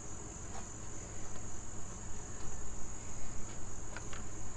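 Insects chirring steadily in one constant high-pitched trill, with a few faint clicks, a pair of them about four seconds in.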